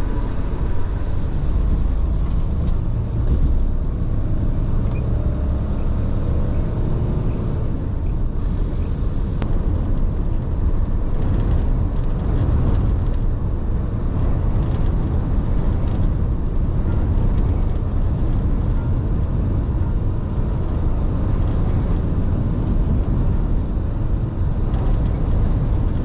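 Steady engine, road and wind noise heard while a tractor-trailer drives at speed, a constant low rumble.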